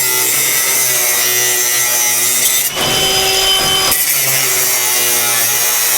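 Power cutting tool running steadily as it cuts through a seized bed-strip bolt on an old pickup bed, easing briefly a few times as the cut is worked.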